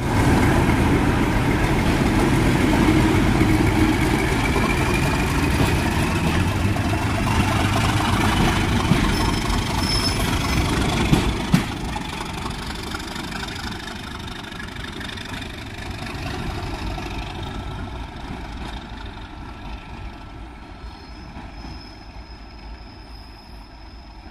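Class 37 diesel locomotive's English Electric V12 engine working hard as it pulls away, with a whistle slowly rising in pitch. A couple of knocks come about eleven seconds in, then the engine sound drops and fades steadily as the train draws away.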